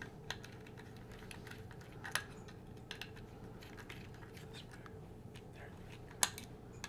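Faint scattered clicks and small scrapes of a flat-bladed screwdriver turning a hardened spike down into the turntable's suspension spider, with a sharper click a little after six seconds in.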